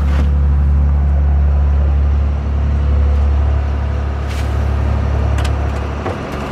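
Fishing boat's inboard engine running with a steady low drone, easing briefly near the end.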